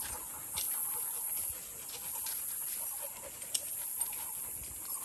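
A pack of dogs walking on a paved road, with scattered light ticks of steps and dog panting, over a steady high-pitched hiss.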